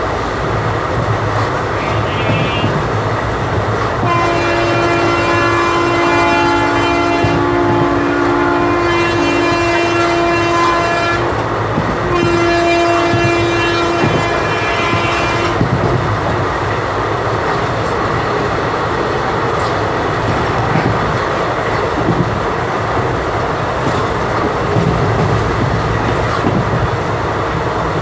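Indian Railways WAP-4 electric locomotive's horns sounded from the train it hauls. The first long blast lasts about seven seconds, with the high-tone and low-tone horns sounding together for much of it. After a short break comes a second blast of about three and a half seconds. Under the horns and after them, the coach's steady rail running noise continues with wheel clatter.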